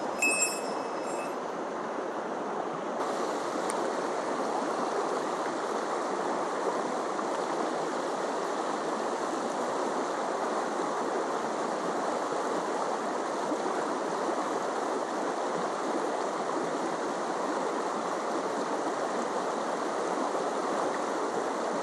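Small mountain stream rushing steadily over rocks, running high and cloudy after heavy rain. A brief faint metallic tinkle sounds in the first second.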